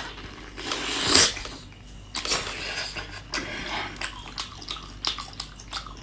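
Close-miked mukbang eating sounds: wet bites, chewing and handling of food, with a louder noisy burst about a second in.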